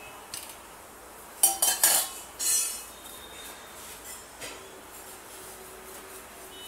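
Steel spoon clinking against a metal dish: a quick cluster of sharp clinks with a brief metallic ring about a second and a half in.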